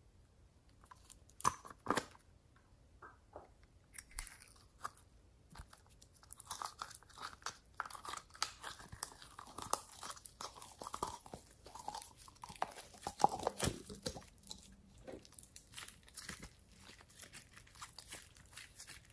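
Two sharp plastic clicks near the start as a slime container's lid comes off. Then soft slime is pulled from its plastic cup and squeezed in the hands, making a dense run of small sticky crackles and squishes, loudest a little past the middle.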